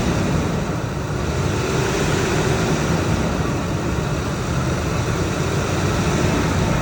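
2003 Ford Expedition's V8 engine running steadily at raised revs, held on the gas to bring it up to operating temperature.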